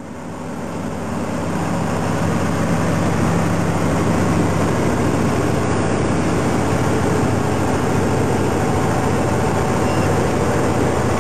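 A tractor-trailer under way: steady engine drone and road noise, rising over the first two seconds and then holding level.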